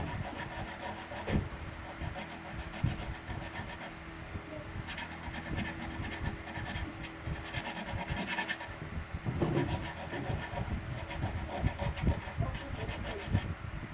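Irregular knocks and thuds with rubbing and scraping from hand work on a refrigerator during a compressor change, with a stretch of rasping in the middle.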